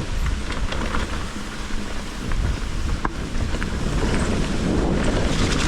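Wind rushing over the mountain bike's camera microphone as it rolls down a wet, rocky trail in the rain, with scattered clicks and knocks from the bike jolting over the ground.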